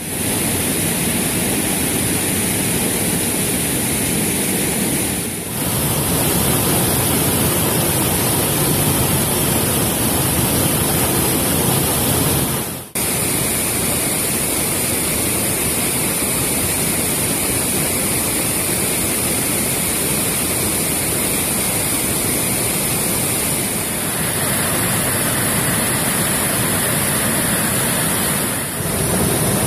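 Karst springs in flood: water gushing from a cliff and pouring over a stepped weir, a loud steady rushing with no let-up. The sound dips briefly and shifts in tone a few times as one shot of the water gives way to another.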